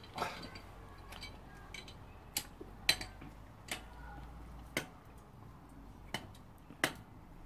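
Metal wheel wrench clinking against the wheel bolts of a car's alloy wheel: sharp metallic clicks about once a second, the loudest about three seconds in and again near the end.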